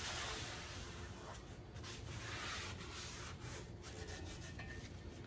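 Paper towel rubbing over the oiled surface of a cast iron skillet in repeated wiping strokes, a soft swishing, to take off the excess seasoning oil.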